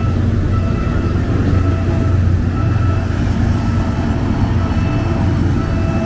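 PNR PT Inka diesel train running past with a steady low rumble, while a short tone repeats about once a second.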